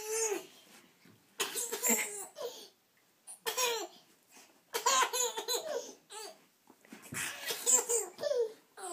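Baby laughing in about four fits of giggles, with short pauses between them.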